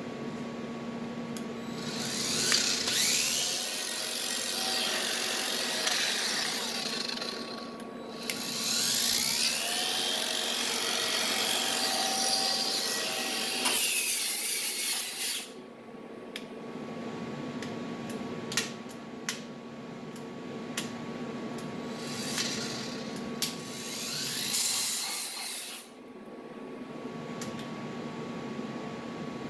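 Bauer angle grinder with a flap disc grinding steel in three runs, its whine rising as it spins up and falling as it winds down, with light clicks and knocks between the runs.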